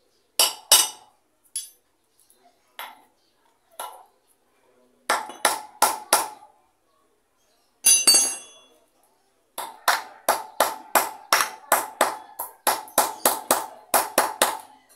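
Hammer tapping a new wheel bearing into a motorcycle's rear hub with short, ringing metallic strikes. A few scattered taps and a quick cluster of four come first, then a ringing clink, then steady rapid taps about three a second.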